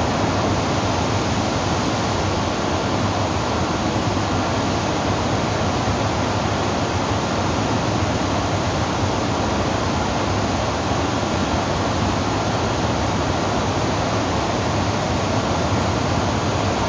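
Double-girder overhead coil-handling crane travelling with its cabin: a steady, even machinery noise with a constant low hum that holds unchanged, with no knocks or starts and stops.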